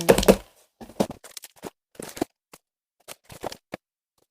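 Cardboard being handled: a string of short scrapes, rustles and light knocks, irregular and spaced apart.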